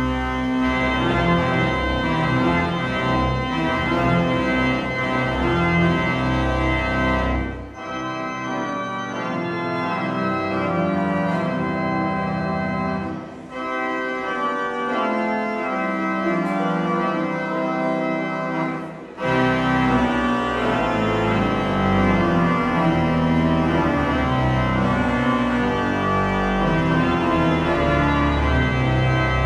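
Church organ playing sustained chords as a closing voluntary at the end of the service. The deep pedal bass drops out about a quarter of the way in and comes back in full about two-thirds through.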